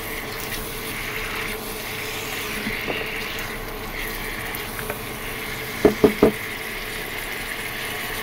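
Spiced vegetable pieces frying in oil in a pan, with a steady sizzle. About three-quarters of the way through come three quick knocks, the loudest sounds.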